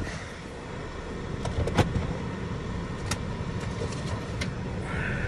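A Cadillac's engine idling steadily, heard from inside the cabin, with a few sharp clicks and knocks from the phone being handled.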